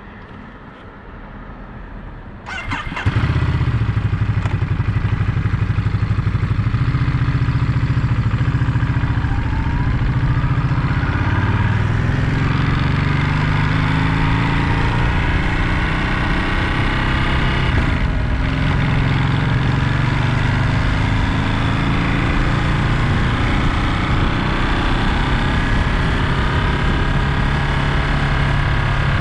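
Ducati Monster 937's 937 cc L-twin engine fires up about two and a half seconds in, then runs steadily at low revs.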